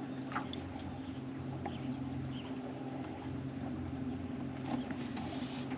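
Small boat's outboard motor running steadily at slow trolling speed, a low even hum, with a few faint clicks and taps over it.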